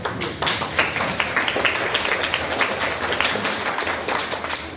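Audience applauding: many hands clapping at once in a dense, irregular patter.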